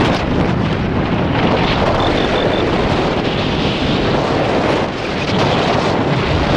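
Wind buffeting the microphone during a paragliding flight, a steady rough rush with gusty flutter. Four faint short high beeps come just over two seconds in.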